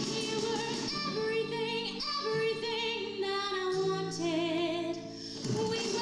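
Show music with a woman singing long, high notes with a wide vibrato over sustained accompaniment.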